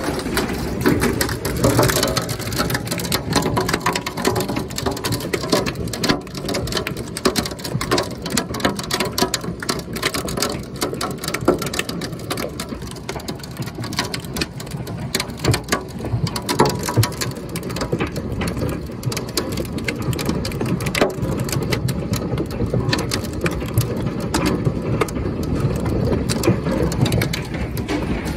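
Large hailstones pounding down in a dense, unbroken clatter of sharp hits on the house, windows and ground, over a steady roar of falling rain and hail, heard from indoors.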